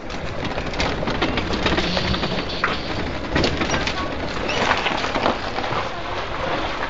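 Golf cart rolling over a rough gravel and stone lane: the tyres crunch on the loose surface with a dense, steady crackle broken by many small knocks and clatters.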